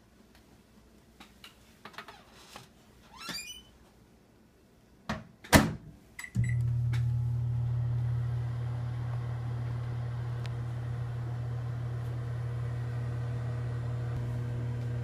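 Microwave oven being started: a sharp click about five and a half seconds in, two short keypad beeps, then the oven running with a steady low hum.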